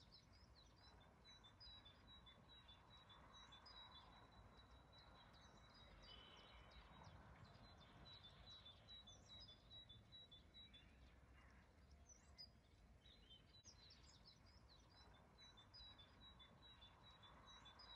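Faint birdsong: a run of rapid, high chirps and short twittering notes from small birds, over soft outdoor background noise.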